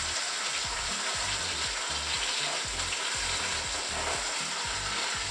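Steady sizzling of food frying in oil in a pan, an even hiss that holds throughout.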